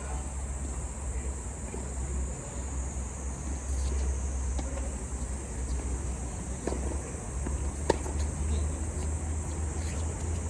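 A steady, high-pitched insect drone with low wind rumble on the microphone, broken by a few sharp pops of a tennis ball struck by rackets, the sharpest about eight seconds in.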